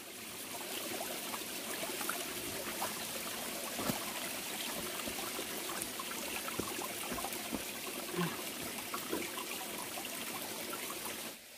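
Small rocky stream trickling and splashing steadily, with a few faint clicks over it; it stops abruptly near the end.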